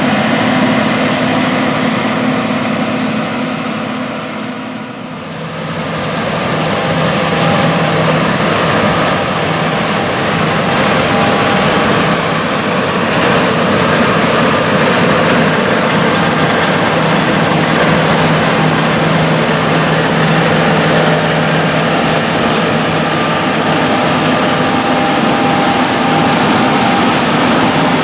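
John Deere S Series combine running steadily under load while harvesting wheat, a constant engine hum over threshing and machinery noise. About five seconds in the sound dips briefly and then settles on a lower steady hum.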